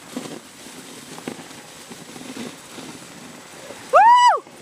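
Dog sled running over packed snow behind a husky team: a steady hiss of the runners and paws on the snow, with a few light knocks. About four seconds in, one loud call lasts about half a second, rising and then falling in pitch.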